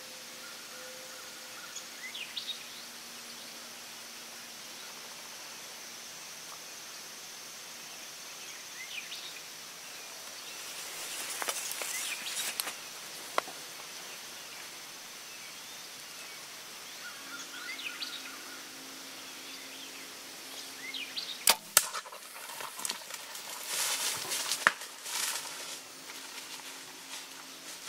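A compound bow shot at a whitetail doe about three-quarters of the way in: a sharp snap of the release with the arrow's hit right behind it, followed by a few seconds of rustling and crashing as the deer runs off through the brush. Faint bird chirps and a steady insect drone sit underneath.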